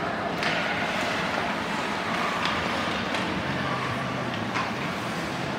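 Ice hockey game sound in an arena: a steady wash of rink noise with a few brief, sharp clacks.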